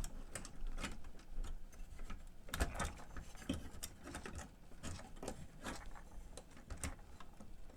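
Irregular light clicks and small knocks of a cassette deck's parts being handled, as the tape transport is worked at to get it out of the chassis.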